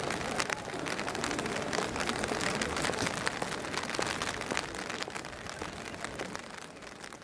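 Rain falling on a wet paved square: a steady hiss dotted with many small ticks of drops, growing quieter near the end.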